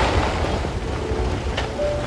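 Blocky lava flow front advancing and crumbling: a continuous rumble of tumbling, grinding rock with a sharp crack about a second and a half in. Faint background music.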